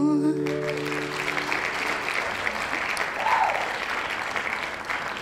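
A small audience clapping and applauding as a song ends. The singer's held vibrato note and the last acoustic guitar chord ring out in the first half-second. A short voice about three seconds in, and the clapping slowly dies away.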